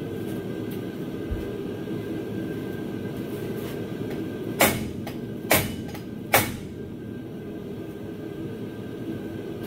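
Three hammer blows about a second apart on the end of a car's rear axle shaft, each a sharp metallic smack with a short ring, driving the shaft inward so its C-clip can be taken out of the differential. A steady low background noise runs underneath.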